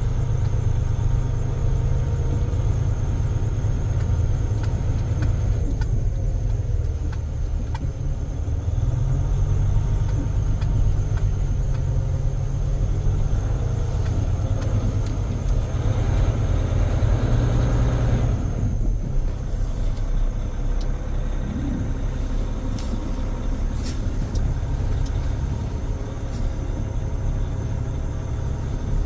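Caterpillar C13 inline-six diesel engine of a Sterling L9500 dump truck running as the truck is driven slowly, heard from inside the cab as a deep, steady drone. About halfway through the engine noise swells for a few seconds, then drops off abruptly.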